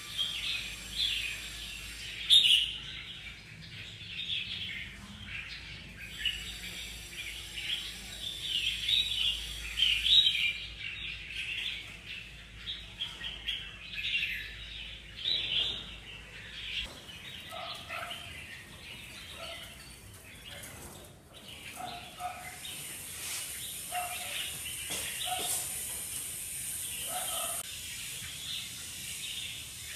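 Many caged red-whiskered bulbuls chirping together: a dense chatter of short, overlapping high calls, turning sparser and lower-pitched in the second half.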